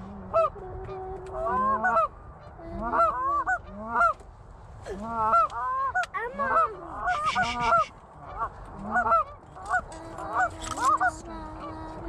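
Canada geese honking and clucking: a string of short, overlapping calls.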